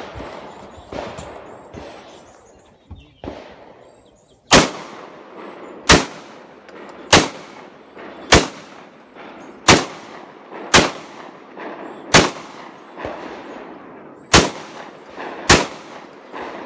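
Shotgun fired in a steady string of about ten shots, roughly one every second and a bit, starting about four and a half seconds in; before that, quieter clatter and handling noise.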